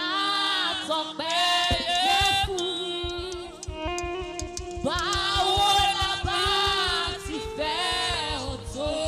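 Live gospel singing by a small group of women: a lead voice with backing singers in harmony, over held instrumental chords. A fast, steady low drum beat comes in about three seconds in.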